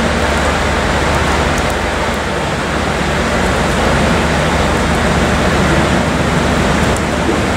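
Transport for Wales passenger train running past along a platform: a steady rumble of wheels on rails with a low, even hum underneath, the noise never breaking. Rain falls on the wet platform.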